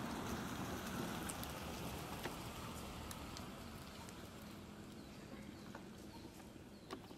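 Outdoor ambience: a steady hiss that slowly fades, with scattered light clicks and rustles and a few faint bird chirps in the second half.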